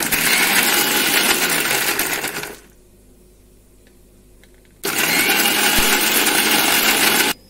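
Electric mixer grinder (mixie) running in two bursts of about two and a half seconds each, grinding soaked spices, chillies and garlic with a little water into a wet paste. The first burst winds down and the second cuts off suddenly.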